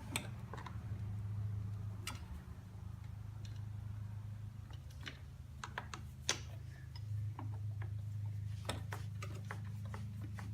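Scattered light clicks and ticks of hands and tools working the fuel line loose at a riding-mower carburetor, over a steady low hum.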